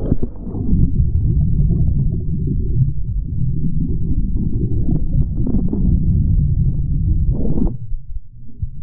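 Muffled, rumbling churn of seawater and surf heard through an action camera held underwater. It eases off briefly shortly before the end as the camera reaches the surface among breaking waves.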